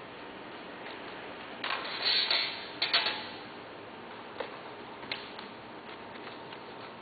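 Handling noise from a manual stainless-steel wrapping machine: a rustling scrape lasting about a second, starting about one and a half seconds in, then a sharp clack, then a few light clicks spaced apart.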